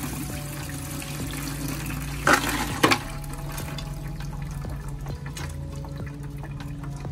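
Wet circuit-board pieces and solution poured from a beaker into a plastic strainer basket, the liquid splashing and draining. There are two sharp louder splashes or clatters about two and three seconds in.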